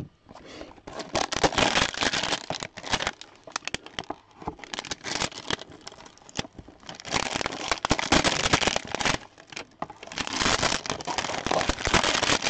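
Trading-card hanger boxes and their wrapping being torn open and handled: repeated crinkling and tearing in about four long spells with short pauses between.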